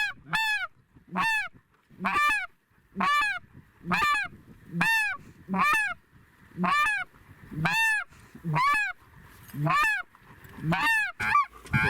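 Snow goose calls: single high, arching honks repeated at an even pace, about one a second, one call at a time.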